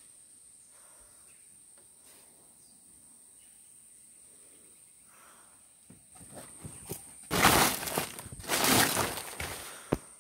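Close rustling and scraping of clothing and branches against the camera, loud in two bouts in the second half and ending in a sharp knock, over a steady high insect drone.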